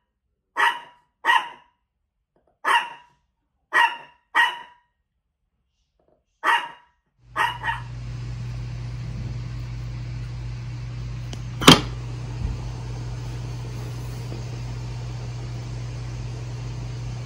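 Small dog, a Chihuahua, giving about eight short, high-pitched yaps in the first seven seconds. It then gives way to a steady low hum with one sharp click partway through.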